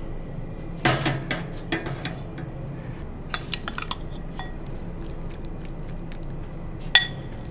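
A heavy wok knocking down onto a gas burner, then a metal spoon clinking several times in quick succession against a glass bowl, and one sharp clink near the end. A steady low hum runs underneath.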